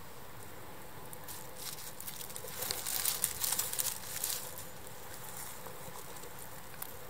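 Crackling rustle of hand and arm movement close to the microphone, building about a second in, loudest around the middle and fading by about four and a half seconds, as the hand holding the beetle is lowered to dry leaf litter.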